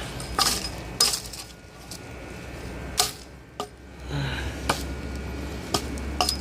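Hatchet blade striking a log: about seven sharp knocks at uneven intervals as the bark is chopped off.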